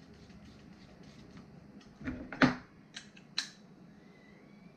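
Fortress FT1135UQ ultra-quiet oil-free compressor running faintly just after being switched on, a low steady hum. A few short sharp sounds cut through it, the loudest about two and a half seconds in and two smaller ones soon after.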